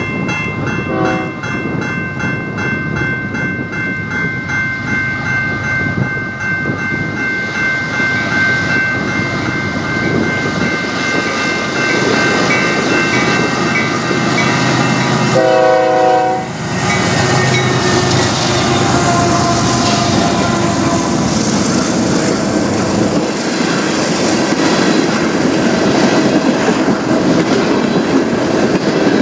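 Diesel-hauled freight train at a level crossing: crossing bells ringing, a short horn blast about a second in and a longer one midway, then the locomotives and freight cars rolling past with wheels clicking over rail joints.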